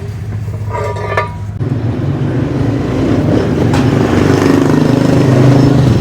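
A motor vehicle's engine running, growing louder over the last few seconds. A brief pitched tone sounds about a second in.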